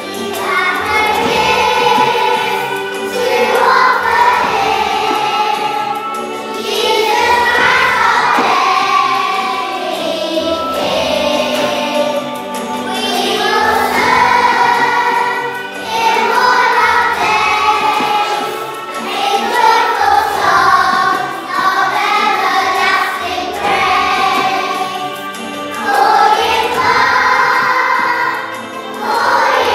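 A choir of young children singing a song together, in phrases a few seconds long, over musical accompaniment.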